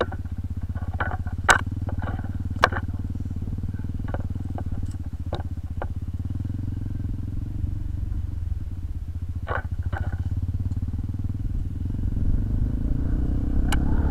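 Motorcycle engine running at low revs along a bumpy dirt trail, with several sharp knocks and clatters from the ride. The engine gets louder and picks up revs near the end.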